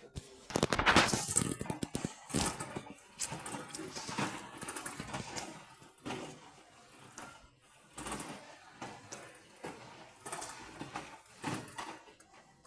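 A run of irregular clicks, knocks and clunks, like something being handled, loudest about a second in.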